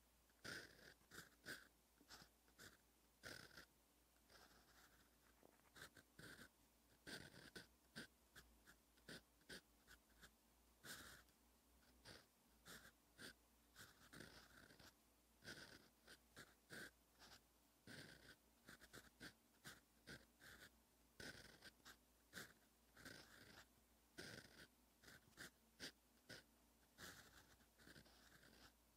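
Fountain pen nib scratching across paper in many short, irregular strokes of handwriting, faint.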